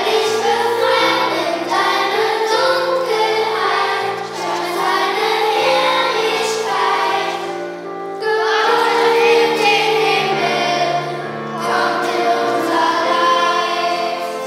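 Children's and youth choir singing a song together, accompanied by piano, with a short pause between phrases about eight seconds in.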